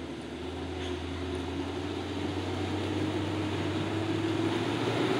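Toyota Land Cruiser 75 pickup's engine running steadily under load as the truck crawls through deep mud ruts, growing gradually louder as it approaches.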